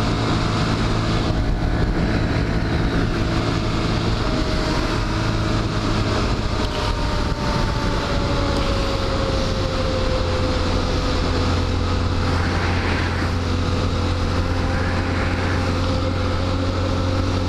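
Stock Honda Grom's 125 cc single-cylinder four-stroke engine running at road speed through its quiet stock exhaust, mixed with wind rushing past the microphone. The engine note holds steady, easing gently downward around the middle.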